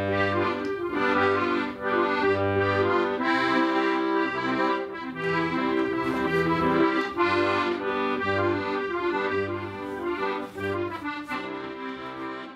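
Accordion music: a low bass note alternating beneath held chords, tapering off near the end.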